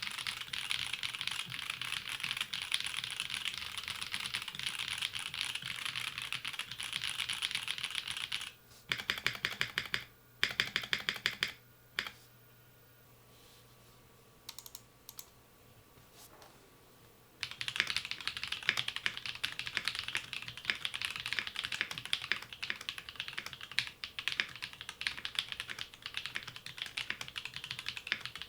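Fast typing on a Blade60 custom mechanical keyboard with Technoviolet switches and GMK keycaps. About a third of the way in the typing stops for two short runs of very rapid key taps, then a few quiet seconds, and steady typing resumes.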